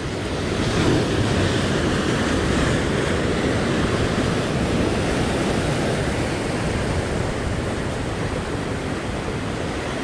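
Surf washing and breaking over a rock ledge: a steady rush of white water, with wind on the microphone.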